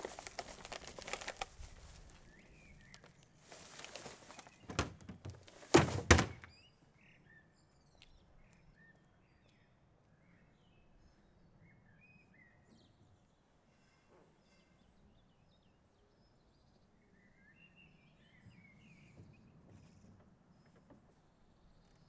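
A plastic wheelie bin lid thunks shut, two loud knocks close together about six seconds in. Then quiet outdoor background with faint bird chirps now and then.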